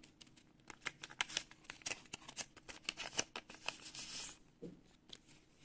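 Crisp paper rustling and crackling as a hand-made paper surprise packet is unfolded and opened: a run of short sharp crinkles, with a longer rustle about four seconds in.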